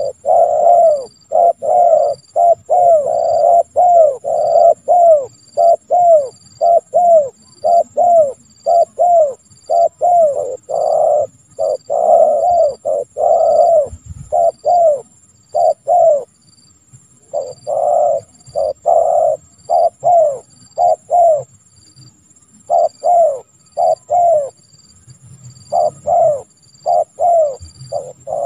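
Spotted dove (tekukur) cooing: a long run of short, loud, low coos repeated in quick succession, broken by a few brief pauses.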